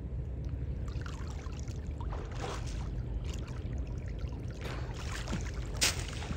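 Water splashing and streaming off as people wade chest-deep and haul up dripping clumps of water weed by hand. There is a sharp slap about six seconds in, over a steady low rumble.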